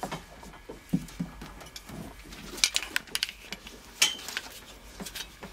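Scattered light clicks and knocks from handling cables and metal crocodile clips, a few sharper ticks among them.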